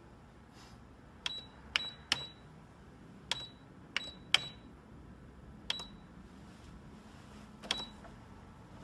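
Canon imageRunner Advance copier's control panel beeping at each key press as numbers are entered: about eight short, high beeps, each with a click, at uneven intervals.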